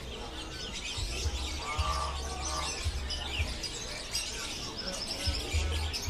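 Many caged songbirds chirping and tweeting at once, a dense chorus of short high calls.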